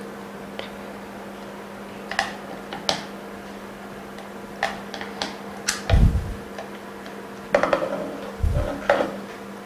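Scattered light clicks and taps of an iPhone 6 screen assembly being handled and pressed into a plastic LCD tester board, with a few low bumps, over a steady electrical hum.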